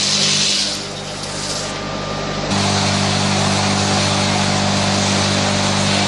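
Wood being turned on a large lathe: a tool cutting into the spinning workpiece over a steady machine hum. The sound changes abruptly about two and a half seconds in.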